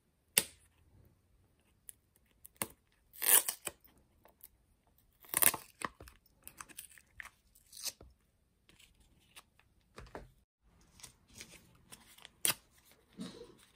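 Plastic packaging of a tempered-glass screen protector kit being opened and handled: irregular sharp crackles and clicks from the clear plastic case, and tearing as the protector and cleaning-wipe sachets are taken out.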